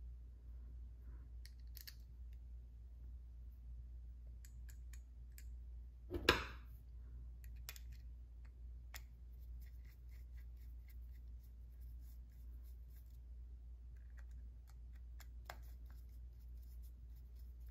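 Faint small metallic clicks and scrapes of tiny screws being picked up and a screwdriver threading them into the aluminium metering cap of a Walbro HD carburetor, with one short, louder clatter about six seconds in. A steady low hum runs underneath.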